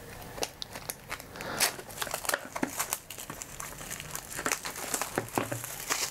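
Cardboard packaging being handled: a brown cardboard inner box sliding against its printed paper sleeve, giving irregular rustling and scraping with small clicks and taps.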